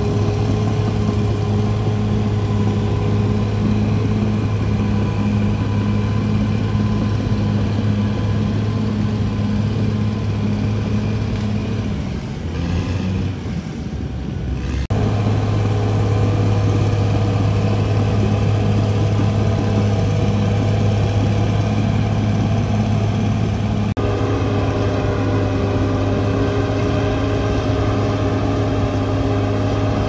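CAT D6R XL crawler bulldozer's diesel engine running steadily under load while it pushes earth. About halfway through, its note drops and the sound dips briefly before the steady running resumes.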